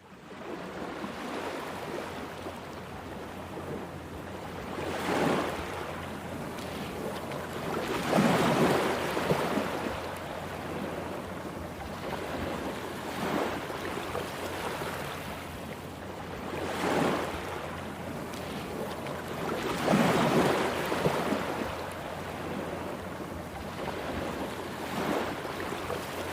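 Ocean waves breaking and washing up the beach at the shoreline: a steady hiss of surf, with a louder swell of breaking water every three to five seconds.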